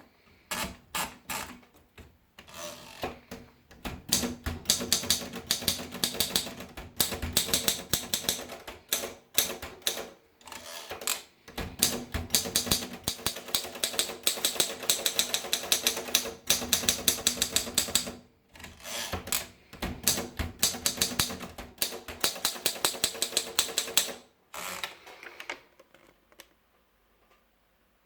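Olympia SM1 manual portable typewriter being typed on: fast runs of sharp key strikes, broken by short pauses every few seconds, stopping near the end.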